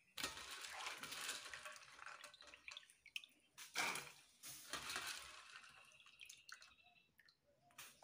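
Water splashing and dripping as hands scoop shelled green pigeon peas out of a metal bowl of water and drop them into a pot, in several bouts.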